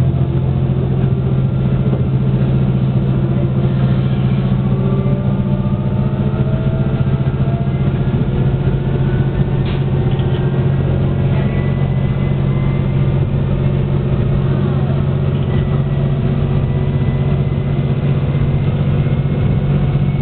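Diesel railcar engine, a KiHa 120, running steadily under power as the train pulls away and gathers speed, heard from inside the cab: a strong low hum with faint whines that rise slowly in pitch.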